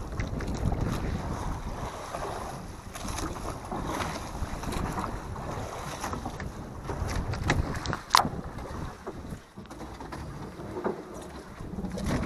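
Wind on the microphone and sea water washing against the hull of a small wooden outrigger boat. A few knocks on the boat, the sharpest about eight seconds in.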